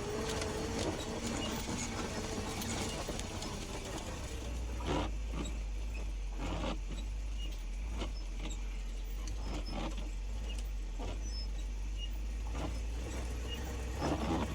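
A vehicle engine running steadily with a low rumble, with scattered short crunches and clicks every second or so, in deep snow.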